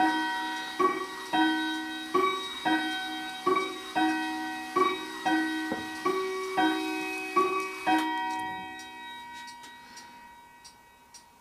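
A slow, evenly paced melody of struck, bell-like chime notes, a little under two a second, that rings on and fades away about eight seconds in. Faint clock ticking is left after it.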